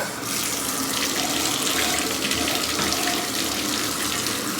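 Water running steadily from the bathtub tap into the tub during a dog's bath.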